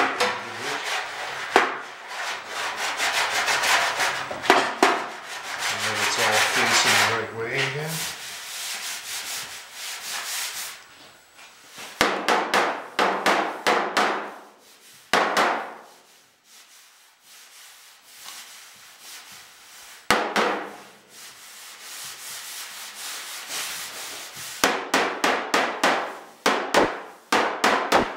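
Hand rubbing and sanding strokes across a bare steel car trunk lid during dent repair, in several bouts with short pauses. Near the end comes a quick run of light hammer taps on the panel.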